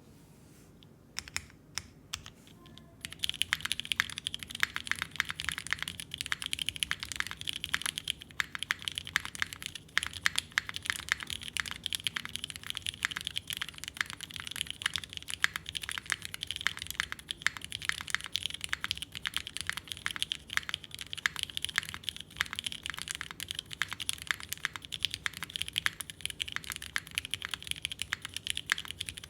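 Custom mechanical keyboard with vintage Cherry MX Black linear switches, O-ring mounted aluminium full plate, no foam and GMK keycaps, being typed on. A few single keystrokes are followed, about three seconds in, by fast continuous typing.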